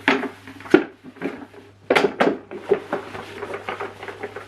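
Hard plastic parts of a Numatic Henry vacuum cleaner knocking and clattering as they are handled and wiped dry with paper towel, with rubbing between the knocks. The two loudest knocks come close together about two seconds in.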